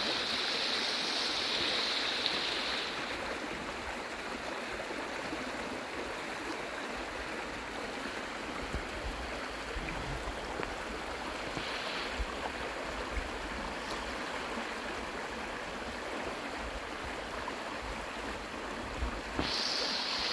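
A steady rush of running water, like a stream, with soft low thumps now and then.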